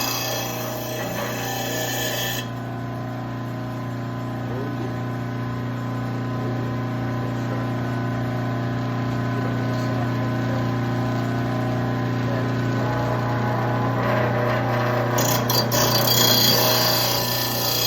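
VEVOR electric mower-blade sharpener's motor running with a steady hum. The grinding stone grinds the steel blade edge with a hissing scrape that stops about two seconds in and starts again near the end.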